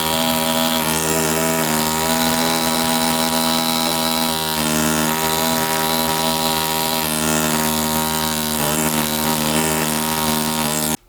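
ZOIC PalaeoTech Bronto pneumatic air scribe running, a steady high buzz with a hiss of air, which cuts off suddenly at the very end.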